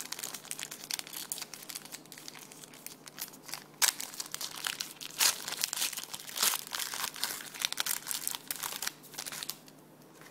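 Hands handling trading cards and their crinkly foil or plastic pack wrapper: continuous rustling and crinkling with sharp clicks, stopping about nine and a half seconds in.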